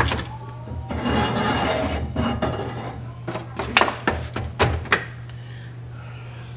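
Meat juices poured from a disposable aluminium foil pan into a metal pot, with the foil crinkling. A cluster of sharp clinks and knocks comes near the middle as the foil pan scrapes and bumps against the pot.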